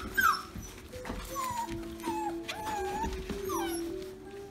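Six-week-old Irishdoodle puppies whining and yipping in short, high cries that rise and fall, several times over, while they crowd around waiting to be fed.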